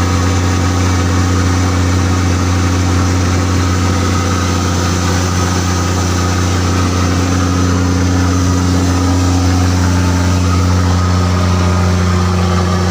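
Fishing boat's engine running steadily at an even speed, a constant low hum.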